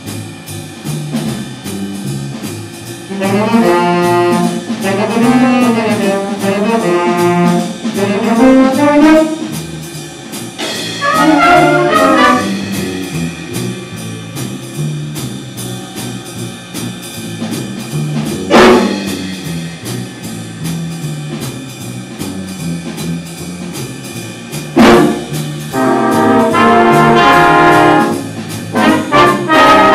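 Instrumental jazz arrangement with a brass section playing phrases, with rising and falling runs, over a low moving bass line, punctuated by two sharp accents.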